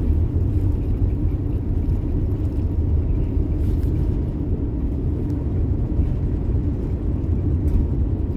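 Steady low rumble inside an airliner's cabin as it taxis after landing.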